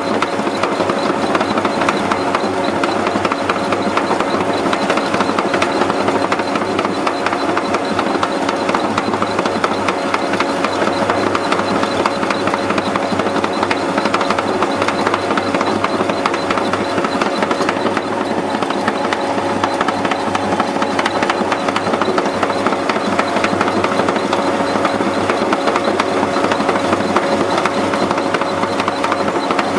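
Hydrogen compressor running steadily on a trial run with hydrogen gas: a loud, continuous machine noise with a steady hum that does not change.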